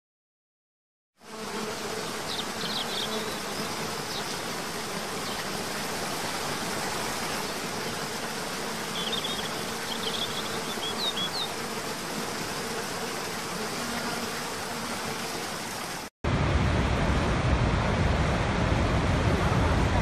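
Waterfall rushing in a steady hiss, with a faint steady hum underneath and a few short high chirps about 3 seconds and 10 seconds in. After a brief cut about 16 seconds in, the sound becomes a louder, deeper rush of a very large waterfall, Niagara's Horseshoe Falls.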